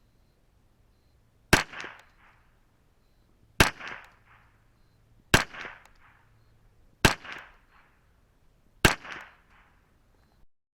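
Five single shots from a Ruger 10/22 semi-automatic .22LR rifle with a KIDD barrel, firing Federal Gold Medal 711B standard-velocity ammunition, spaced about two seconds apart. Each sharp crack is followed by a fainter second report about a third of a second later.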